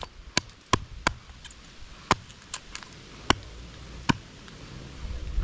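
Estwing camp hatchet chopping a notch into a wooden pole resting on a stump: a series of sharp wood strikes at an uneven pace, about seven in all, roughly one every half second to a second.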